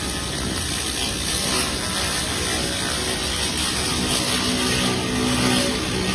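Pulsed fiber laser cleaning head ablating paint off a metal bar: a dense, rapid crackling buzz, made of many fast snaps as the coating flashes off the surface.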